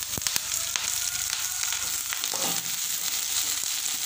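Moringa leaves sizzling in hot oil in a metal pan as they are stirred with a metal slotted spatula, with a steady frying hiss. A few sharp metal knocks against the pan come just at the start.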